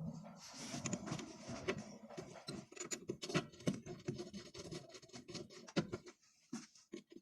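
Scattered, irregular clicks, taps and scraping of small hard objects being handled, thinning out in the last second or so.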